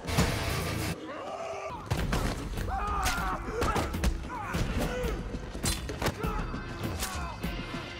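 Action-film fight-scene soundtrack: music with repeated thuds, crashes and a few gunshots, and voices crying out in gliding pitches through the middle.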